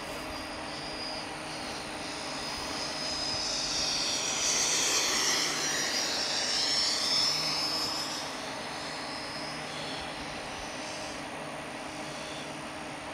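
Freewing F-16's 90mm electric ducted fan, a high whine with the rush of air around it, swelling as the jet makes a low pass. It is loudest about four to seven seconds in, then fades back.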